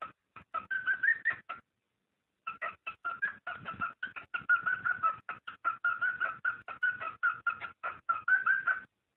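Cockatiel mating calls: a rapid run of short, repeated chirps, about six a second, broken by a pause of about a second near the start and stopping just before the end.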